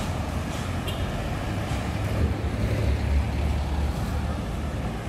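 Road traffic: cars driving past, a steady low rumble of engines and tyres.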